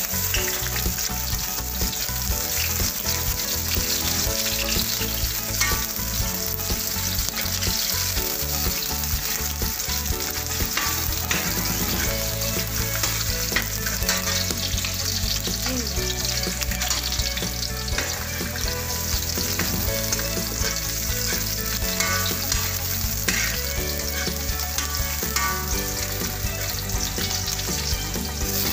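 Garlic and onion frying in hot oil in a stainless steel wok, sizzling and crackling steadily, with a metal spoon stirring and scraping against the pan.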